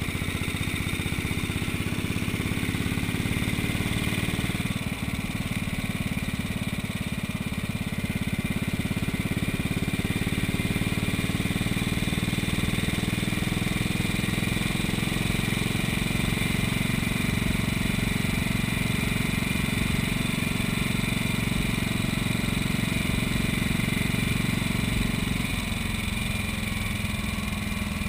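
A 1956 Moto Guzzi Falcone's 500 cc horizontal single-cylinder engine runs steadily while the motorcycle is ridden along. Its note shifts about five seconds in and again near the end.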